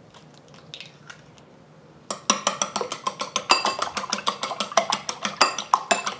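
Two eggs being beaten in a bowl with a utensil: a fast, even run of clicks with a light ring against the bowl, starting about two seconds in.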